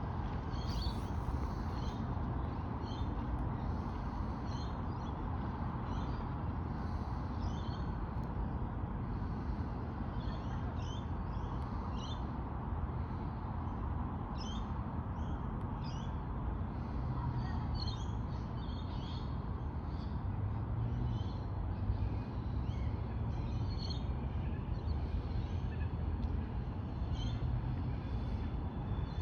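Birds calling in short, high chirps, repeating about once a second at irregular intervals, over a steady low rumble.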